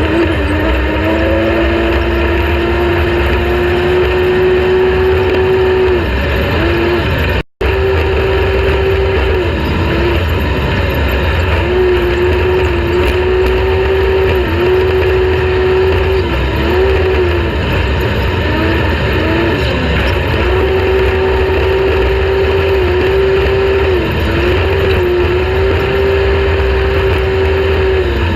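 Off-road race vehicle's engine running hard at high revs, holding a steady pitch for several seconds at a time with repeated brief dips in revs. The sound cuts out completely for a moment about seven seconds in.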